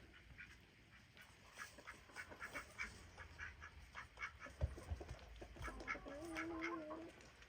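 Domestic poultry calling faintly: many short, quick clucks and chirps, then one longer pitched call about six seconds in that lasts about a second.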